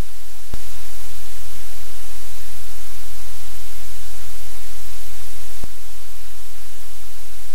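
Loud, steady static hiss with a low electrical hum underneath, from the livecam's audio feed. A sharp click about half a second in makes the hum louder, and a second click near six seconds drops it back.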